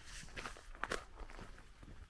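Footsteps of someone walking at an easy pace along a gravel country lane, about two steps a second.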